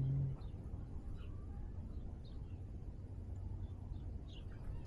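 A cat's low, drawn-out vocalization cuts off in the first half-second. After it come a few faint, short bird chirps, spread out over a low, steady rumble.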